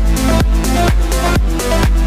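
Electronic dance music with a steady beat, about two beats a second, over sustained bass and synth notes.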